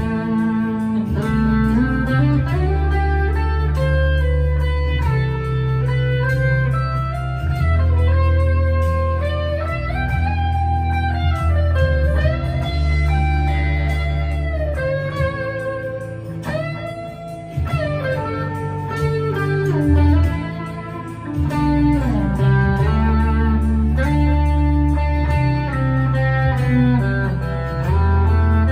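Harley Benton ST-Modern HSS electric guitar played through an overdrive pedal: a bluesy lead line with frequent string bends, over steady low notes that change every couple of seconds.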